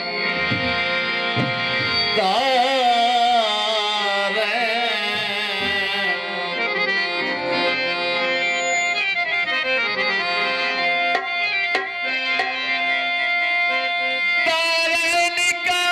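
Harmonium holding a sustained melody with tabla accompaniment, deep bass-drum thuds near the start and a quick run of tabla strokes near the end. A man's voice sings drawn-out, wavering wordless notes over it.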